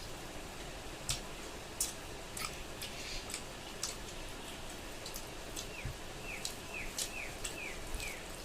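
Close-miked chewing of pork and rice: irregular wet mouth clicks over a steady hiss. From a little past halfway, a bird repeats a short falling chirp about twice a second, seven times.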